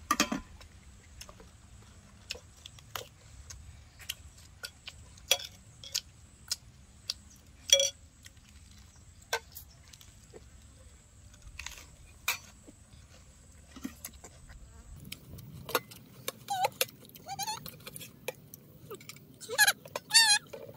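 Metal fork and knife clinking and scraping on a ceramic plate as a piece of roast beef is cut, in sharp separate clinks every second or so. One clink leaves the plate ringing briefly. Short bits of voice come near the end.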